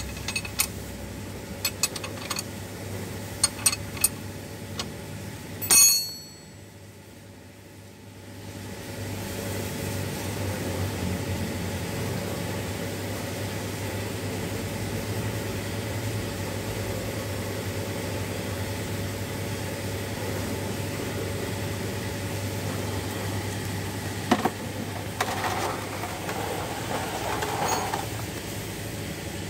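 Metal clinks of a wrench working on a diesel fuel filter, with one sharp ringing metal clank about six seconds in. After a short quiet gap a steady low engine-like hum runs on, and near the end there are knocks and clattering as the filter goes into a drain pan of diesel.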